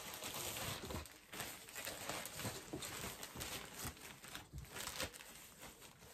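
Plastic packaging crinkling and rustling as a piece of clothing is pulled out of it and handled, an uneven run of crackles.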